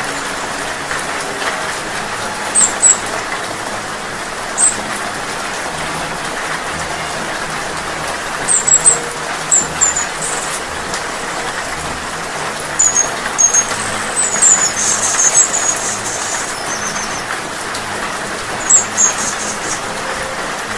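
Steady rain falling, with a hummingbird's high, thin chips in short bursts scattered over it, busiest around the middle.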